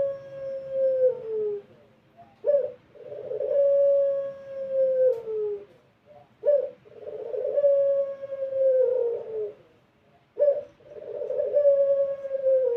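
Barbary dove of the long-voiced 'pelung' type cooing: each call is a short sharp note followed by a long drawn-out coo held on one pitch that drops at the end. The coo repeats about every four seconds; a call is ending as the sound begins, and three full calls follow.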